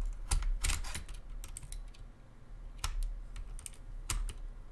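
Irregular sharp plastic clicks and rattles from a keyboard being handled as its spacebar keycap is worked loose, a few clicks coming in quick pairs.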